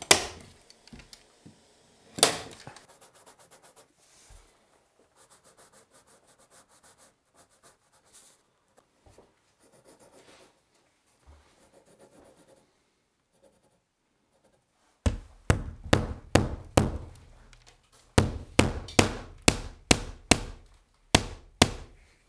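Two sharp knocks, then quiet scraping and rubbing, then about two-thirds of the way in, quick runs of sharp knocks, two to three a second, with short pauses between the runs, like hammering on wood.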